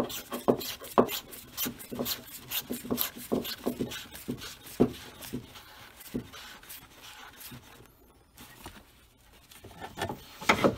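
Rapid rubbing and scraping clicks from gloved hands handling an oil catch can and the shop towels beneath it. The clicks are dense at first and thin out about six seconds in.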